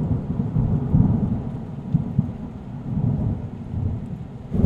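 Thunderstorm sound effect: low rolling thunder over a steady hiss of rain, with a fresh heavy rumble swelling up near the end.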